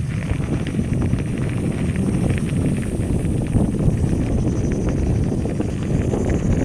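Bicycle riding over a rough path: a steady low rumble from the tyres and frame with scattered clicks and rattles, and some wind on the microphone.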